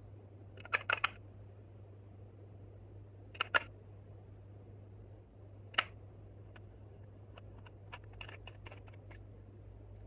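Sharp clicks and taps from a small nail polish bottle and its cap being handled: three quick clicks about a second in, two more a little after three seconds, one near six seconds, then a run of fainter ticks. A low steady hum underneath.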